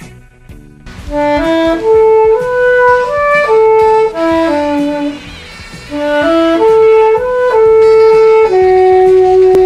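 Saxophone playing a melody of single notes. It starts about a second in and runs in two phrases; the second phrase ends on a long held note.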